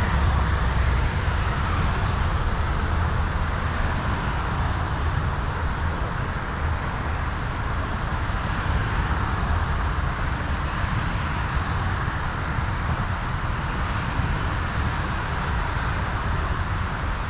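Heavy rain falling steadily: a constant rushing hiss with a low rumble underneath.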